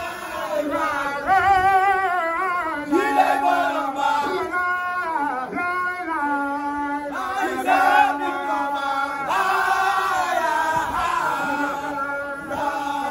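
A man leading a Baye Fall religious chant through a microphone, his voice wavering with strong vibrato in long sung phrases. Other voices hold a low, steady note beneath him.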